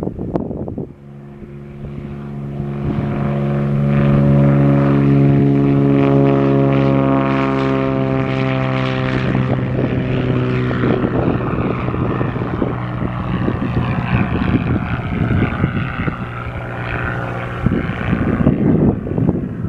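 A Cirrus SR20's 200 hp Continental IO-360-ES six-cylinder engine and propeller at full takeoff power, a steady drone that grows louder as the plane rolls past and lifts off, then holds as it climbs away. Wind buffets the microphone near the end.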